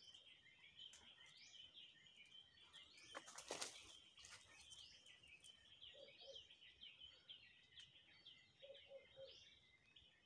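Faint birdsong: many small birds chirping over and over in quick short notes. One brief sharp noise stands out about three and a half seconds in.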